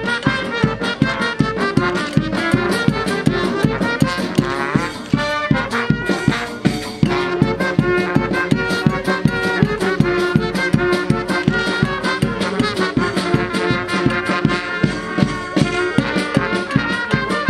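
Upbeat instrumental music with a fast, steady beat and held melody notes.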